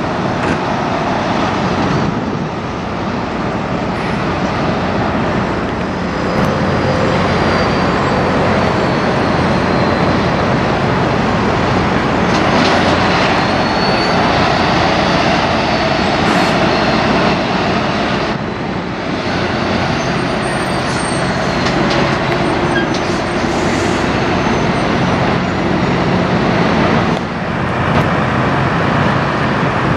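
Tractor-trailer semi trucks driving by one after another, their diesel engines running along with tyre and road noise. The sound changes abruptly a few times as one truck gives way to the next.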